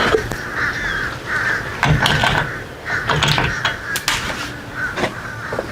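A crow cawing repeatedly in a series of harsh calls, with a few sharp clicks from hand tools and hardware being handled.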